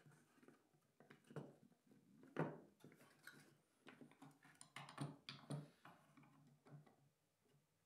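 Faint, scattered clicks and taps of a small brushless motor being seated in a laser-cut plywood firewall and its M3 mounting screws being turned with a screwdriver. The sharpest tap comes about two and a half seconds in, with a few more around five seconds in.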